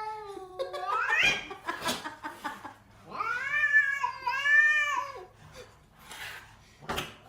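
A domestic cat meowing and yowling: a wavering meow at the start, then about three seconds in a long, drawn-out yowl in two or three arching notes.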